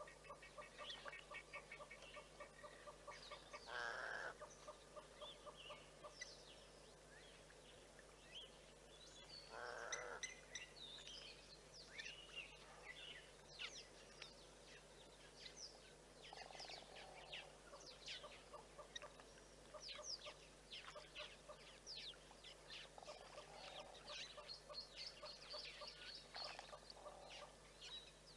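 Faint wild birds chirping and calling: many quick high chirps throughout, a repeated lower call in the first few seconds, and two short, louder calls about four and ten seconds in, over a steady faint low hum.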